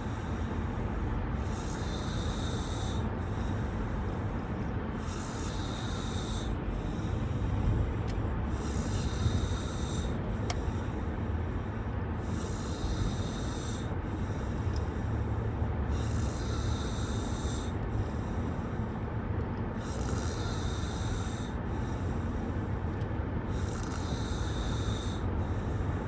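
A sleeping woman snoring in rhythm with her breathing, repeated snore breaths over the steady low rumble of a moving car's cabin.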